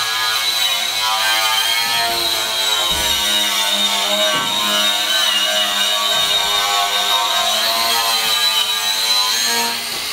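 Noisy power grinder running steadily, a high-pitched whine that wavers a little in pitch and drops off briefly near the end.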